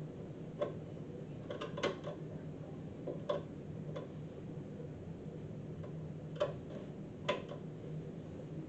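Scattered sharp clicks and light taps, about seven in all at uneven spacing, of a screwdriver working a case screw on a garage door opener's housing, over a steady low hum.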